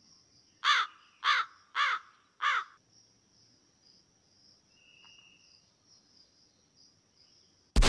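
A crow cawing four times in quick succession, each caw short and harsh, over a faint, steady high-pitched hiss.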